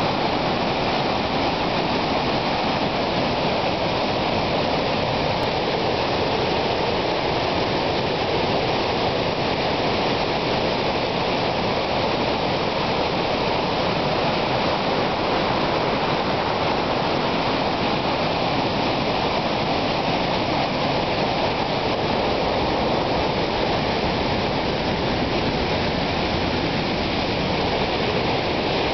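A creek waterfall and its rapids in flood, swollen with muddy thunderstorm runoff: a steady rush of torrential water that never lets up.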